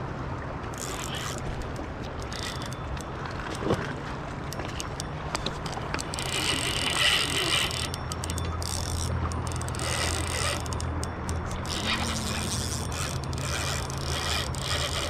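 Okuma Ceymar spinning reel working under the load of a hooked steelhead: repeated bursts of mechanical clicking and buzzing from its gears and drag, over a steady low rumble.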